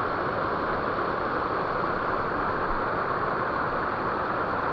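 Creek water running steadily over rocks, an even rushing hiss with no change.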